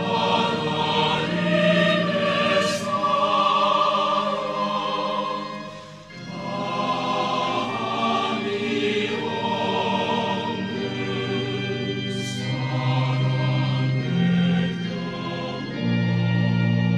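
Background choral music: a choir singing slow, long-held chords over sustained low notes, with a brief dip about six seconds in.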